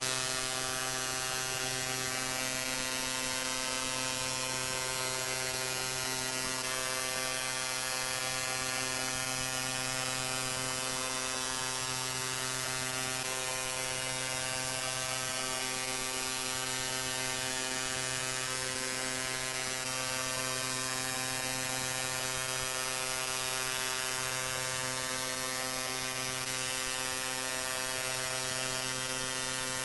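A steady buzzing drone with many overtones on one low pitch, holding unchanged throughout.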